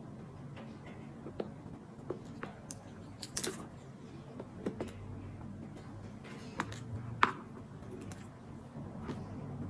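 Scattered light clicks and taps as a handbag's gold metal strap clasp and leather crossbody strap are handled, with the sharpest clicks about three and a half seconds in and again about seven seconds in.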